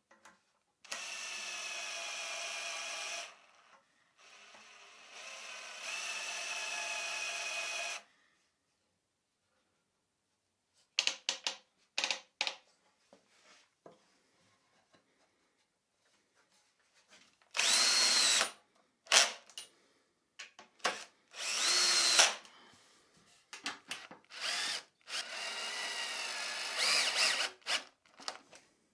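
Cordless drill-driver driving long wood screws into spruce timber, in several runs of a few seconds each. Clicks and knocks sound in the pauses between runs.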